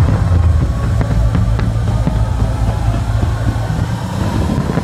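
Music playing, with sharp pops and crackles of aerial fireworks through it, a few of them about a second or two in.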